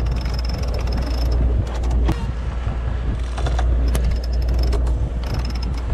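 Sailboat sheet winch cranked with a winch handle to haul out the headsail, its pawls clicking in repeated quick runs with short pauses between turns. A steady low rumble runs underneath.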